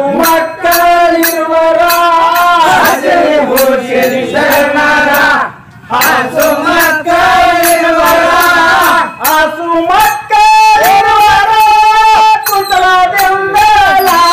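Men singing a Kannada Muharram folk song (Muharram pada) in long, drawn-out phrases, with a steady percussion beat of about two or three strokes a second.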